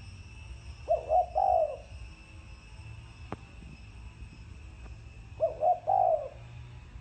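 Spotted dove of the deep-voiced 'thổ sấm' type cooing: two three-note phrases about four and a half seconds apart. A single sharp click between them.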